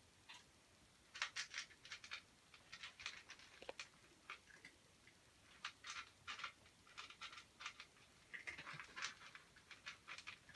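Cats crunching dry kibble: quick, irregular crunches and clicks, starting about a second in.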